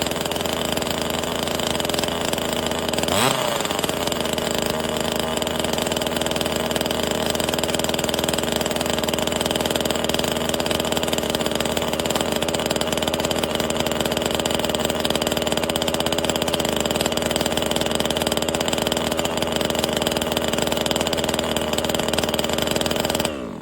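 NEO-TEC NCS 2500 top-handle chainsaw's 25.4cc two-stroke engine running steadily, with a brief rise in pitch about three seconds in. Near the end the pitch falls and the sound drops away.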